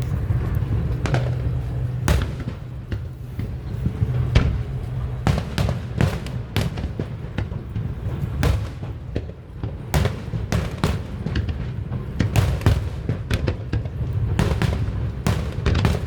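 Fireworks display: a rapid, irregular series of aerial shell bangs and booms, several a second, over a continuous low rumble.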